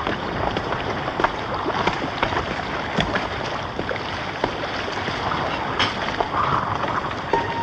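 Steady rushing of wind and sea, with scattered short clicks and crackles.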